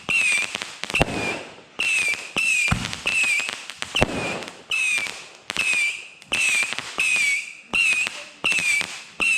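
Fireworks firing a rapid run of about a dozen shots, one every second or less. Each shot opens with a short whistle that dips slightly in pitch, followed by crackling, and a few deeper thumps come in the first half.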